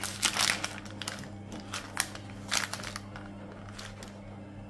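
Paper takeaway bag crinkling as hands handle and fold it back, in several short rustles in the first three seconds, over a steady low hum.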